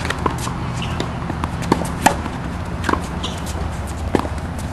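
Tennis balls struck by rackets and bouncing on a hard court: a string of sharp pops and knocks at uneven spacing, the loudest two about two and three seconds in, over a steady low rumble.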